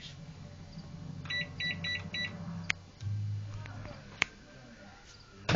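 Microwave oven keypad beeping: a beep, then four short quick beeps as the cooking time is punched in. About three seconds in, the oven starts with a low steady hum, with a couple of single clicks.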